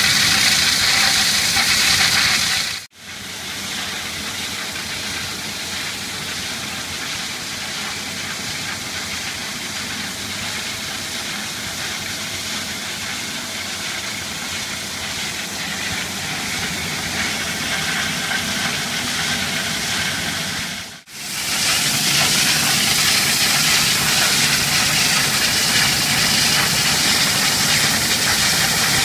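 Diamond wire saw, an old slurry wire saw converted to diamond wire, running through granite: a steady, loud hiss over machine running. It cuts off sharply about 3 seconds in and again near 21 seconds, and is quieter and duller in between.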